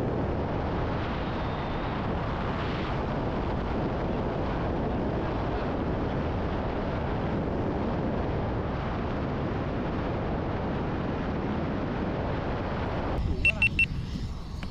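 Heavy wind rushing over the camera microphone during a skydive, a steady loud rush that cuts off abruptly about 13 seconds in. A quick run of about four short high beeps follows.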